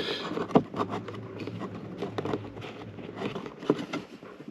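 Irregular light clicks and crackling over a faint low steady hum.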